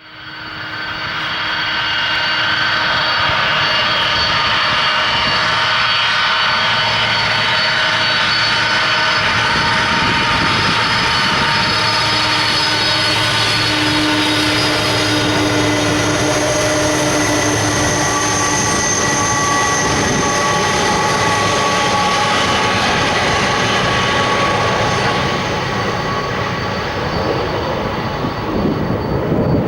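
Boeing 767-300ER jet engines running loud and steady, with several whining tones over the engine noise, easing off slightly near the end.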